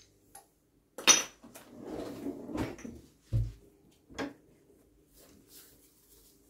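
Kitchen handling noises: a sharp click about a second in, a stretch of rustling, then two knocks, as spice containers and a salt packet are moved about and a cupboard is opened or closed.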